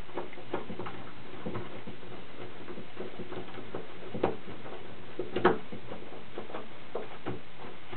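Scattered light clicks and taps of a hand screwdriver working screws into a door lockset, the loudest about five and a half seconds in, over a steady hiss.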